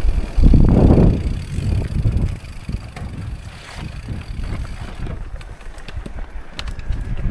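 Mountain bike rolling fast downhill over a loose, stony dirt trail: a low rumble of the tyres with rattling clicks and knocks from stones and the bike, and wind buffeting the microphone, heaviest in the first second or so.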